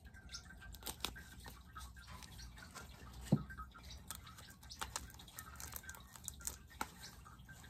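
Paper packing wrap and tissue paper crinkling as it is handled and pulled from a box, in scattered small crackles, with one dull thump a little past three seconds in.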